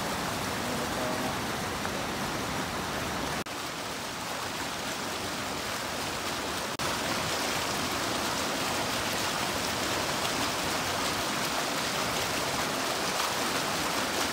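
Mountain stream running, a steady even rush of water, broken twice by brief dropouts about three and a half and seven seconds in.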